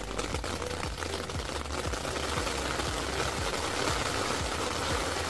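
Steady rain pattering on a camping tarp overhead, a dense, even patter of drops.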